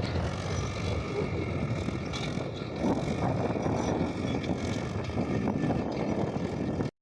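Tractor engine running steadily while pulling a plough, with a rough low rumble; it cuts off suddenly near the end.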